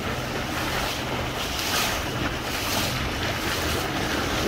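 Motorboat under way: a steady low engine drone under rushing water and wind buffeting the microphone, the hiss swelling and easing every second or so.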